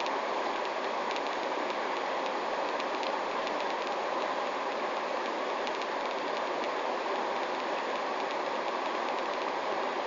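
Running water of a stream, a steady even rush with faint splashing ticks.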